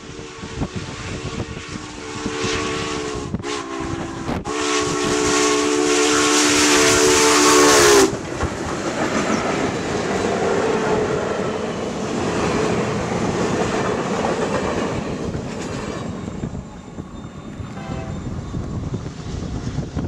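Union Pacific 844's steam chime whistle sounds a chord in several blasts, the last one long and cut off sharply about eight seconds in, as the FEF-3 4-8-4 steam locomotive passes. After that comes the steady rumble and clatter of the trailing E9 diesel units and passenger cars rolling by.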